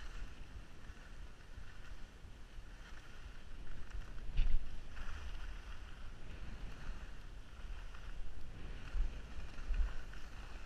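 Skis sliding fast over groomed snow with wind buffeting the action camera's microphone: a steady scraping hiss over a low rumble, with one louder jolt about four and a half seconds in.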